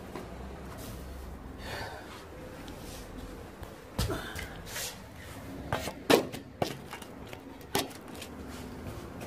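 Several sharp knocks and clicks, spaced unevenly through the second half, over some rustling.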